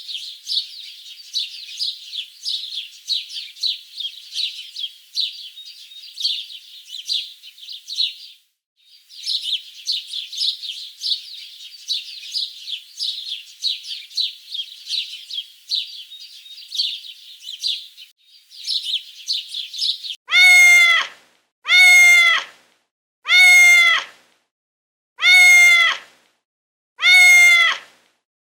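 Birds twittering busily for about twenty seconds, then an animal giving a cat-like meowing call five times, evenly spaced nearly two seconds apart, each call falling in pitch at its end.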